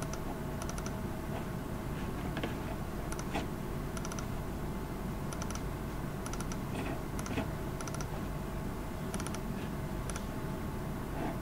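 Scattered clicking of a computer mouse and keyboard, some clicks in quick pairs, over a steady background hum.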